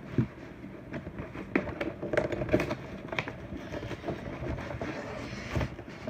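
Cardboard shipping box being handled and pried open: irregular scrapes, taps and crinkles, with a few sharper clicks in the middle.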